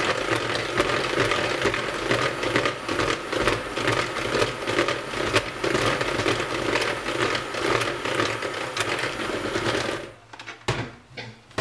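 Electric hand mixer running, its beaters whisking cake batter in a plastic bowl, with frequent clicks over the steady motor noise. It is switched off about ten seconds in, followed by a few light knocks.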